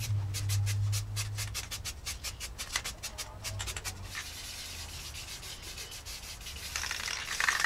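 Aerosol spray paint can: a quick run of rattling clicks for the first few seconds, then a steady spray hiss from about four seconds in that grows louder near the end.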